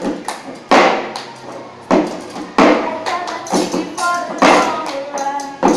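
Cup-rhythm game played by three people in unison: hand claps, taps, and cups knocked down on a plastic-covered table, with a loud knock about every second. Girls' voices sing along from about three seconds in.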